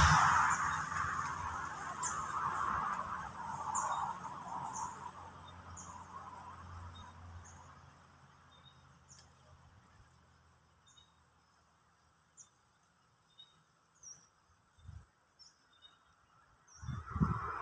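A passing vehicle fading away over the first several seconds, leaving faint short high-pitched chirps that repeat about once a second. A few low thumps come near the end.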